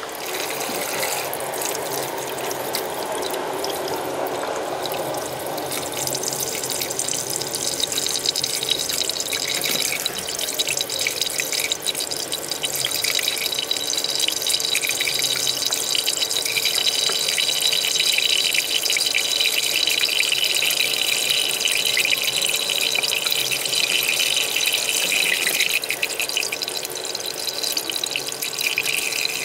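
Tap water running steadily into a plastic bowl of young ginger roots in a kitchen sink, splashing as the roots are rinsed under the stream by hand.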